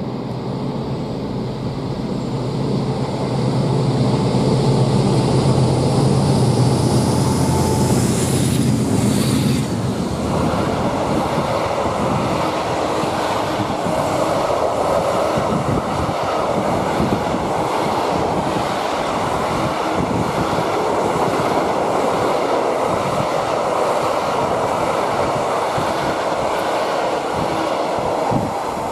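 Two Class 56 diesel locomotives, with Ruston-Paxman 16-cylinder engines, run by with a steady engine drone that ends abruptly about ten seconds in. After that the timber-laden freight wagons rumble and clatter over the rails as the train rolls past.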